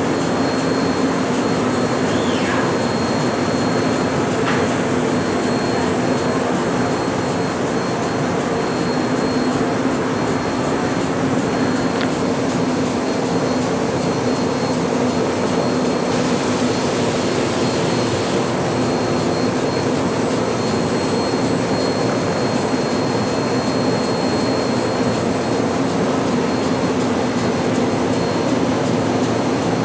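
MAN Roland 306 six-colour sheetfed offset press running, a loud, steady machine noise with a low hum and a thin high whine.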